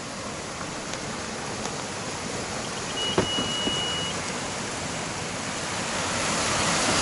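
Small rocky stream rushing over stones, growing louder toward the end. About three seconds in, a single steady high beep lasting about a second, the Beep Mat detector's signal tone.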